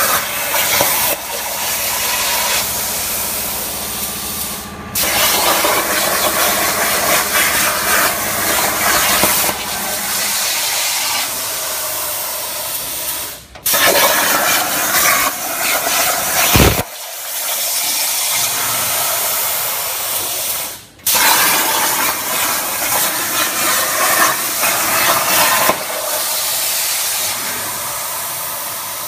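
CNC plasma cutter torch cutting steel plate: a loud, steady rushing hiss of the arc and its air jet. It breaks off briefly about four times, once with a sharp knock.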